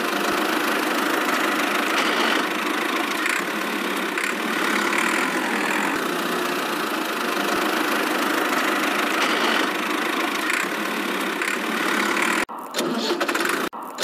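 Steady engine-like running sound with the miniature tractor on the move, cutting out briefly twice near the end.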